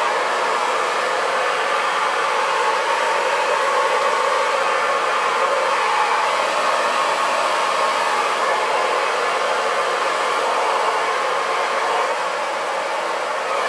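Handheld hair dryer running steadily, blow-drying a cocker spaniel's coat: a constant rush of air with a faint motor whine.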